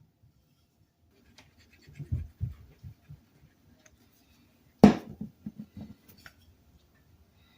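Tools or parts being handled and set down: a few dull knocks about two seconds in, then one sharp clunk a little before the five-second mark, the loudest sound, followed by several softer knocks.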